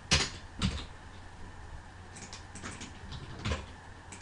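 Scattered keystrokes on a computer keyboard: a handful of separate sharp key clicks, the loudest two in the first second and a few fainter ones later.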